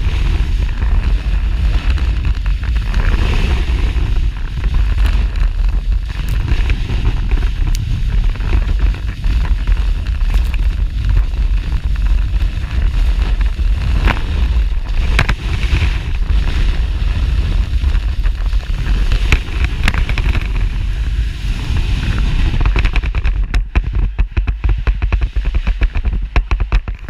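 Snowboard sliding fast down a groomed slope, its base and edges scraping and crackling over packed snow, under heavy wind noise rumbling on a board-mounted camera's microphone. Near the end the wind rumble thins and the crackle of the board on the snow stands out.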